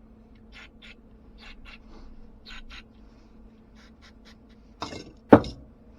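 Hand cleaning of a small carburetor part: short scratchy, hissing strokes, mostly in pairs, then two sharp knocks near the end, the second the loudest, as a part is set down or tapped. A low steady hum runs underneath.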